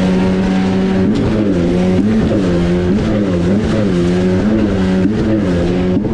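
Jet ski engine running at speed, its pitch dipping and recovering roughly every half second.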